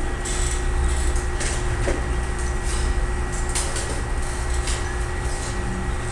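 Room tone: a steady low rumble with a constant faint electrical hum, and scattered light rustles and clicks.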